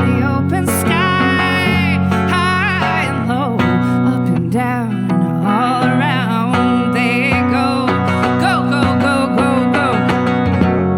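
Live folk music: acoustic guitar accompanying a high melody line that slides and wavers in pitch, with no sung words.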